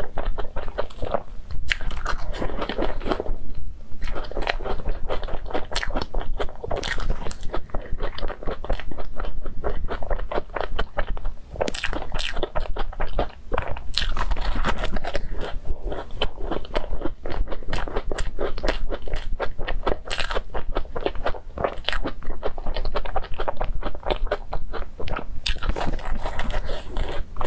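Biting and chewing of cream puffs with a crumbly sugar topping: a dense, continuous run of small crunches and mouth clicks.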